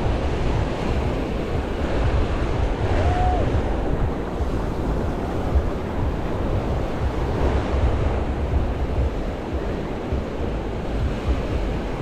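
Ocean surf breaking and washing up on a sandy beach, with strong wind buffeting the microphone as a gusty low rumble. A brief faint tone sounds about three seconds in.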